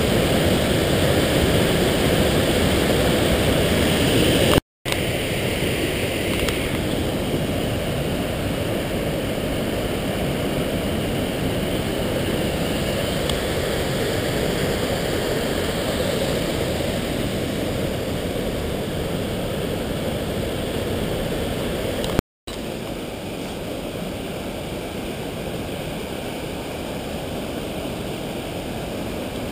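Mountain torrent rushing over boulders through a narrow rock gorge: a steady whitewater rush. It drops out twice in brief silences, about five seconds in and again past twenty seconds, and is a little quieter after each.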